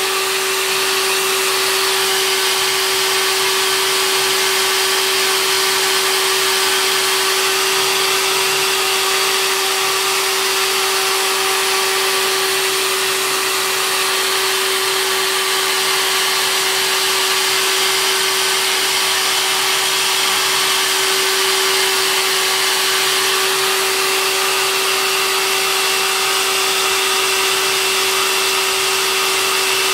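Hair dryer running steadily: a constant rush of air over a steady motor hum, blowing on the wetted back of a stretched canvas to shrink it taut.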